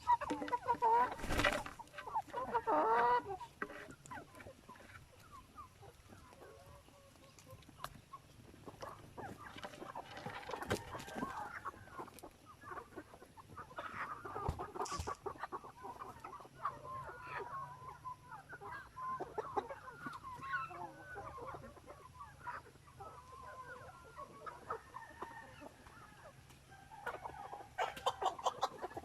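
A flock of free-range chickens clucking busily as they feed, many short calls overlapping, loudest in the first few seconds and again near the end. A single sharp knock about a second and a half in.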